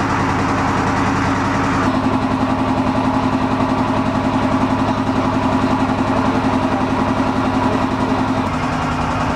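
Small boat engine running steadily, heard from on board, with a fast even throb; its pitch drops a little shortly before the end.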